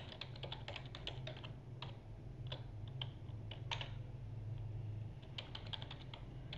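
Typing on a computer keyboard: irregular key clicks in short runs, sparser in the middle and coming in a quick run near the end, over a low steady hum.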